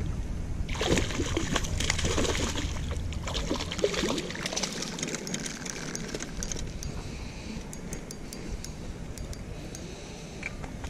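Hooked rainbow trout splashing at the surface as it is reeled to the bank and lifted out of the water, with rustling handling noise as it is landed. The splashing is loudest in the first few seconds, then gives way to faint scattered ticks.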